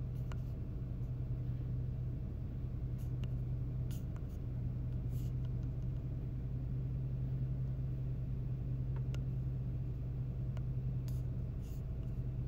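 Steady low hum with a low rumble beneath it, and a few faint clicks scattered through.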